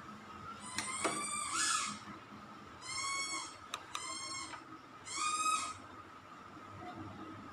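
An animal calling four times, each call about half a second long and arching in pitch. Two short sharp clicks fall among the calls.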